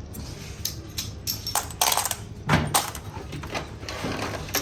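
Metal tools and parts clinking and clattering as they are handled, a string of sharp, irregular knocks.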